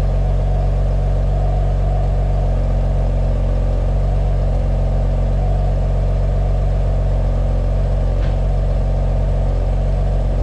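2016 BMW F80 M3's S55 twin-turbo inline-six idling steadily during warm-up after a cold start, breathing through catless downpipes and an Active Autowerke equal-length resonated mid pipe.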